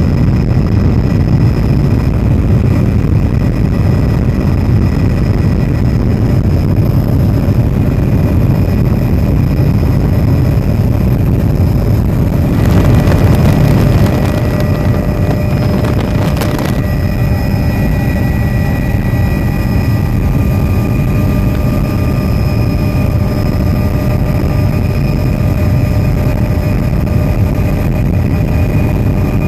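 Helicopter engine and rotor heard from inside the cabin: a loud, steady, deep rumble with a thin steady whine over it. It swells briefly about 13 seconds in, and there is a short knock a few seconds later.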